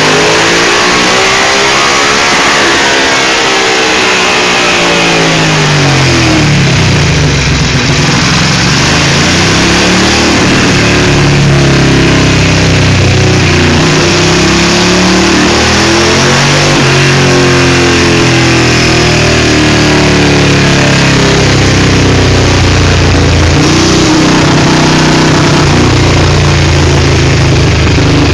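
Ducati race bike engine breathing through open Jenvey air horns (intake trumpets), revving. Its pitch swings up and down over the first several seconds, then holds at a fairly steady higher speed with small rises and dips.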